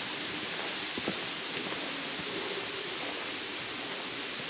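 Steady rushing hiss of a small river flowing over and around stepping stones, with a faint knock about a second in.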